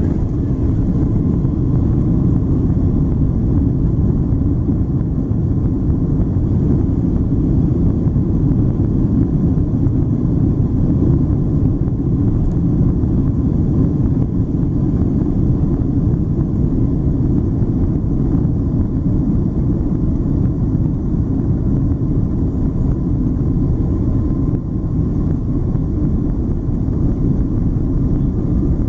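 Boeing 777-200ER's Rolls-Royce Trent 892 engines and airframe heard from inside the cabin as the jet rolls along the runway for takeoff: a steady low rumble, with a faint whine slowly rising in pitch in the second half.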